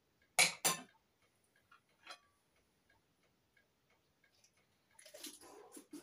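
Knife and fork clinking on a dinner plate: two sharp clicks about half a second in, then scattered small ticks, with softer eating noises near the end.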